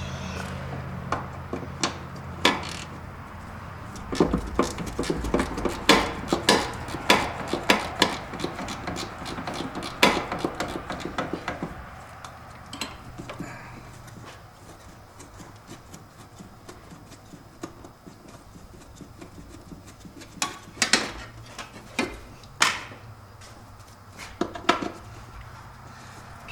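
Metal hand tools clicking, clinking and knocking on engine parts in irregular sharp strikes while bolts are worked loose. A dense run of strikes fills the first half, and a few more louder knocks come near the end.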